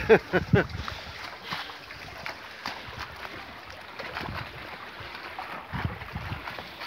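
Lake water lapping in the shallows with wind noise on the microphone, scattered small splashes and ticks through it; a short voice sound at the very start.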